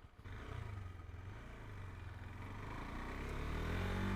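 KTM 390's single-cylinder engine pulling away under throttle: it comes in suddenly about a quarter second in and grows steadily louder, the revs climbing toward the end.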